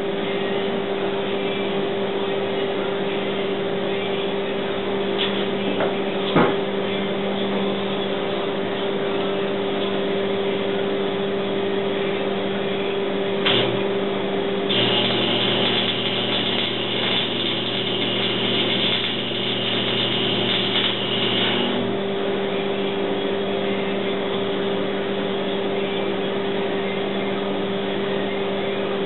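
Arc welding on a snowblower's tubular steel cab frame: the welding arc burns for about seven seconds past the middle, over a constant low hum. A couple of short knocks come before it.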